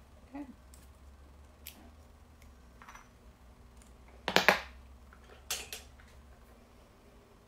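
Small craft tools and paper handled on a cutting mat: scattered light taps and clicks, with a sharp cluster of clicks about four and a half seconds in and another pair about a second later.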